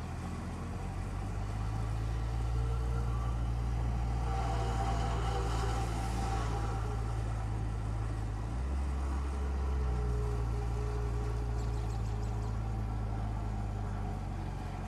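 The four-cylinder engine of a 1957 Mercedes-Benz 190 SL running as the car rolls slowly forward: a steady low hum whose pitch drops briefly a little over halfway through.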